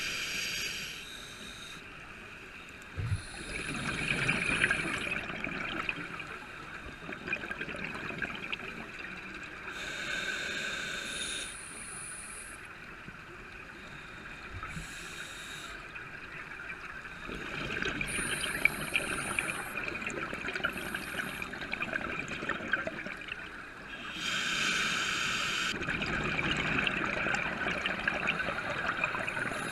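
Scuba diver breathing through a regulator underwater: a hissing inhale through the demand valve alternating with the bubbling rush of exhaled air leaving the exhaust, breath after breath every few seconds.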